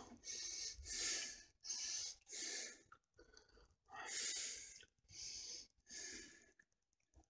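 A person breathing close to the microphone in short, irregular puffs of air, about one a second.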